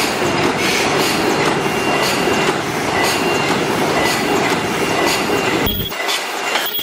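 Debao-5000S paper bucket forming machine running: a steady, loud mechanical clatter with a regular stroke about twice a second. Near the end the low rumble drops away, leaving the higher clatter.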